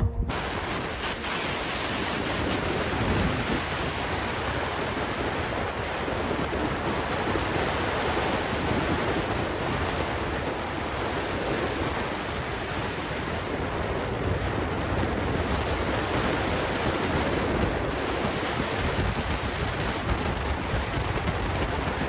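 Steady wind rush on the microphone of a camera riding on a moving motorbike, mixed with road noise, with no clear engine note.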